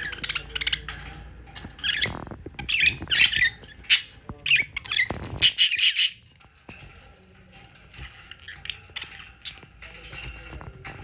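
Budgerigar chirping and squawking in short, loud bursts for about the first six seconds, then softer twittering chatter.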